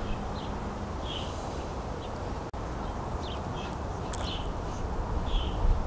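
Outdoor ambience: a steady hiss with a low rumble, and short high chirps of small birds every second or so.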